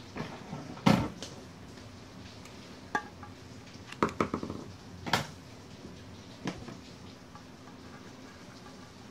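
Small handling knocks and clicks as black electrical tape is wrapped around a jar lid: a sharp knock about a second in, then a quick run of snips from scissors cutting the tape about four seconds in, and a few lighter taps after.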